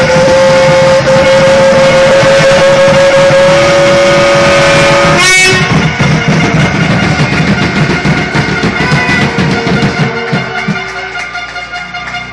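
Fire-attack pump engine running hard at high revs: a loud, steady tone that rises slowly in pitch. About five seconds in it breaks off with a sharp crack and gives way to a busier, gradually quieter mix of tones and clatter.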